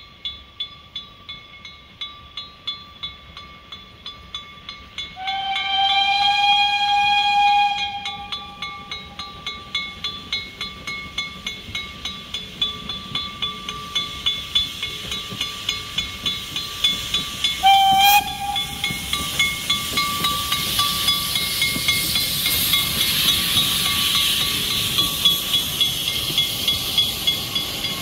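Saxon IV K narrow-gauge articulated steam locomotive working a train: steady exhaust chuffs that grow louder as it approaches. One long whistle blast comes about five seconds in and a short toot around eighteen seconds, then the hiss of steam rises as it draws close.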